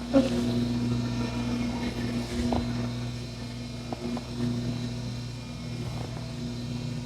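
A steady low machine hum that swells and eases slightly, with a few faint soft clicks about two and a half and four seconds in.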